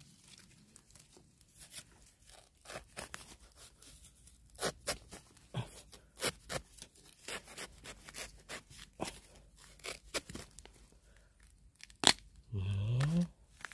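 Gloved hands scraping and digging in crumbly soil and dry leaves around a young bamboo shoot, with scattered crackles and rustles. About twelve seconds in there is a single sharp snap as the shoot is broken off by hand.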